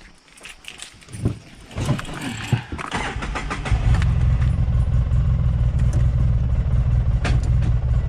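A few knocks and clicks, then a vehicle engine starts about three seconds in and settles into a steady low-pitched idle.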